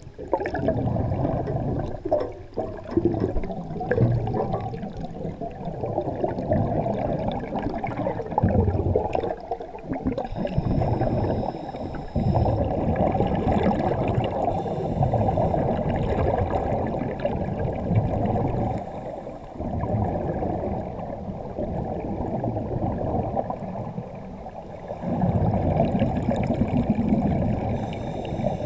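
Muffled underwater bubbling and rushing of air escaping from surface-supplied diving helmets, rising and falling in uneven surges.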